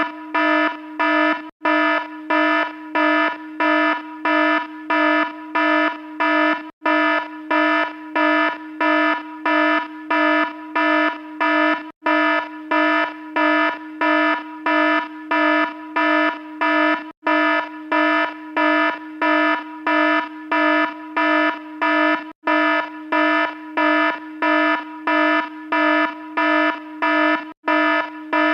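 Electronic alarm beeping rapidly with a harsh, buzzy tone, about two beeps a second, repeating without change. It breaks off for an instant about every five seconds.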